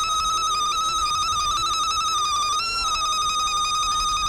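A woman's ululation: one long, high-pitched trilling call, the tongue fluttering rapidly on a steady pitch, with a brief lift in pitch just under three seconds in.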